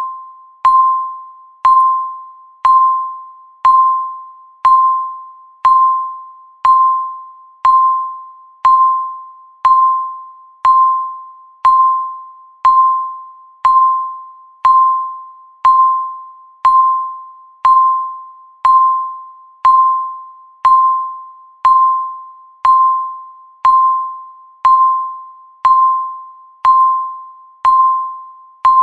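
Countdown timer beeping once a second: a single mid-pitched electronic beep that starts sharply and fades away, repeating at an even pace.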